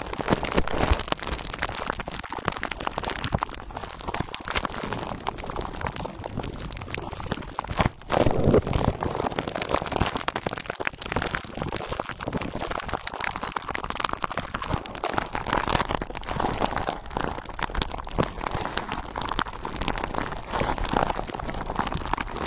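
Clear plastic wrap crinkling and crackling as fingertips pinch and squeeze it close to the microphone, a dense run of small crackles with a brief break about eight seconds in.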